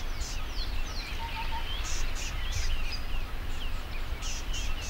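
Many wild birds chirping and calling, with short high-pitched pulses in between and one low three-note call about a second in, over a steady low rumble.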